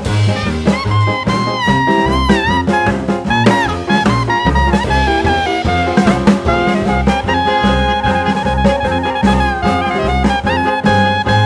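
Background jazz music with brass or saxophone melody over a walking bass and drums.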